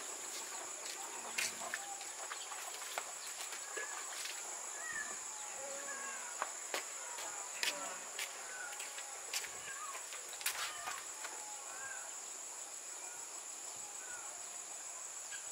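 Steady high-pitched insect drone, with scattered short chirping calls from chickens and a few sharp clicks.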